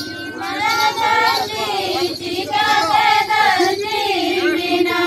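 A group of women singing together in unison, unaccompanied, a Baha festival song; the voices come in about half a second in and hold long sung notes.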